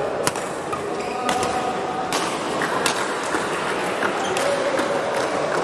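Badminton rackets striking the shuttlecock in a doubles rally, a sharp crack about once a second, over a murmur of voices in the hall.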